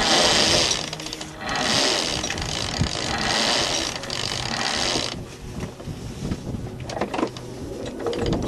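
Sailboat sheet winch ratcheting as the genoa sheet is hauled in to complete a tack: two long runs of rapid clicking, the second about three and a half seconds long, then slower scattered clicks.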